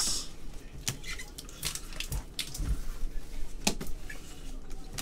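A stack of trading cards being flipped through by hand, cards sliding and flicking against one another in irregular short clicks and swishes.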